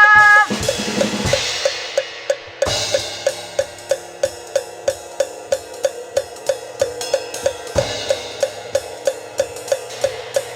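Instrumental break of a jazz song played on a drum kit: a cymbal crash about half a second in, another near three seconds and another near eight seconds, over an even beat of about four cymbal ticks a second, with soft backing chords underneath. A sung phrase ends just as it begins.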